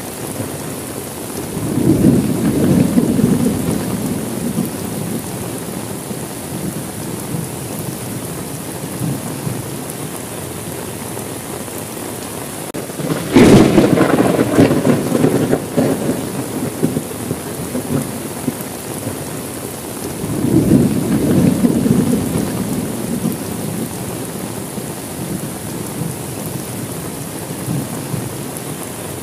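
Heavy rain falling steadily through a thunderstorm, with three rolls of thunder. A rumble comes about two seconds in; about halfway a sharp crack, the loudest sound, leads into a long rumble; another rumble comes about three-quarters of the way through.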